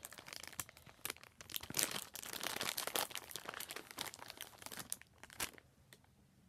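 Crinkling plastic of a Churrumais con Limoncito snack-chip bag as it is handled and a chip is taken out. The rustling stops about five and a half seconds in.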